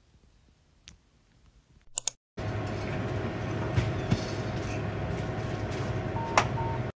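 Seven Cafe self-serve coffee machine running as it dispenses café latte into a cup of ice: a steady mechanical whirr with a low hum and a steady tone, starting suddenly a couple of seconds in. A brief high tone and a sharp click come near the end.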